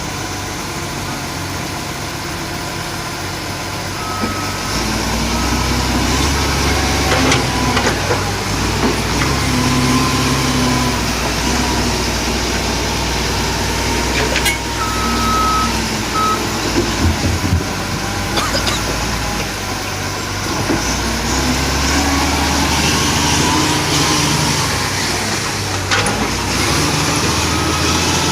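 Bulldozer's diesel engine running under load, getting louder about four seconds in, with occasional metallic knocks and a couple of short high beeps.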